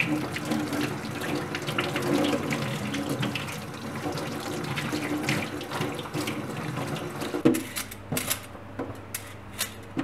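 Kitchen tap running in a steady stream while hands rub and rinse a vegetable under it. About three-quarters of the way through the water stops with a sharp click, and a few separate clicks and taps follow.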